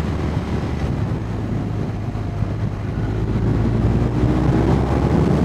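BMW R1250R's 1254 cc boxer twin engine and exhaust under acceleration, heard from on the bike. It shifts up from second to third partway through, then pulls harder, getting louder toward the end.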